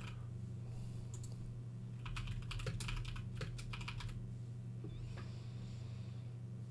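Typing on a computer keyboard: a short run of keystrokes about a second in, then a longer quick run from about two to four seconds in, over a steady low hum.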